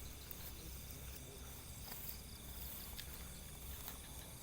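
Crickets and other insects trilling steadily, with a few faint clicks.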